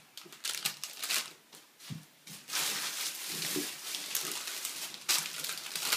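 Plastic shopping bag rustling and crinkling as it is handled, with sharp crackles and a denser stretch of rustling in the middle.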